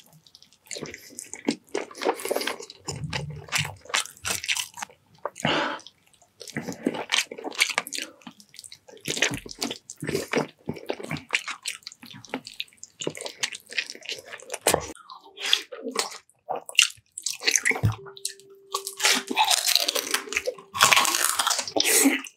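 Close-miked eating sounds: wet chewing and biting in short, irregular bursts, with a faint steady hum joining in the last few seconds.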